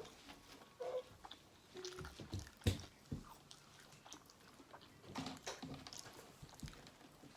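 Quiet chewing and biting of food, with scattered soft mouth clicks and crunches.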